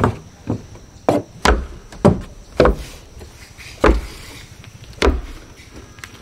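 Footsteps along a railway track: sharp, heavy steps about two a second, slowing to about one a second past the halfway point.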